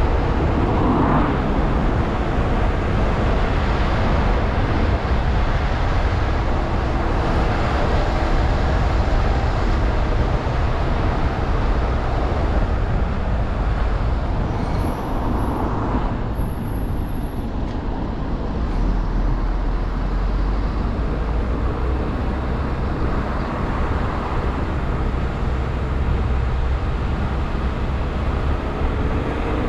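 A car driving along a country road: steady tyre, road and engine noise, with the engine pitch drifting up and down a little.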